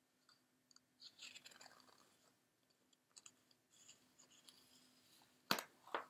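Faint rustling and crackling of a picture book's paper pages being handled, with two sharp crisp snaps near the end as the page is moved.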